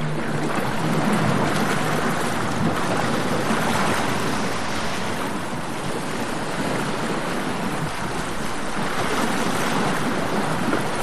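A steady rushing noise with no pitch to it, with small swells in loudness.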